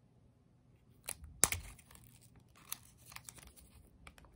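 Thin clear plastic wrap being peeled off an Apple AirTag: scattered crinkling crackles, the loudest a sharp snap about a second and a half in.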